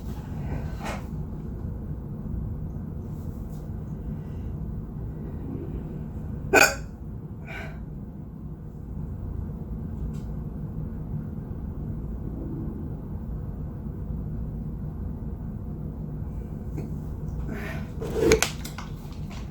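A person hiccuping: two loud, sharp hiccups about twelve seconds apart, with a couple of fainter ones, over a steady low rumble.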